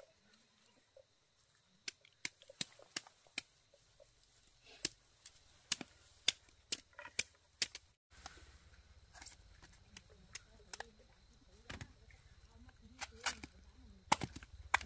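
A series of sharp, irregular clicks or snips, a few a second at their busiest, with a brief dropout a little after halfway; after it a low rumble runs under the clicks.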